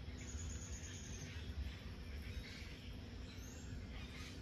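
Light drizzle falling on leafy trees, a steady soft hiss with a low rumble and a faint steady hum beneath. A thin high chirp lasts about a second near the start, and a brief rising chirp comes about three and a half seconds in.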